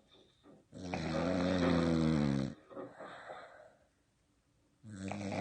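Pit bull snoring in her sleep: one long, loud snore starting about a second in, a softer breath after it, then the next snore beginning near the end.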